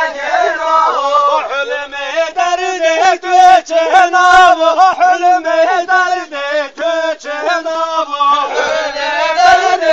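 Group of voices chanting and singing a Zazaki halay dance song together, in short repeated syllables.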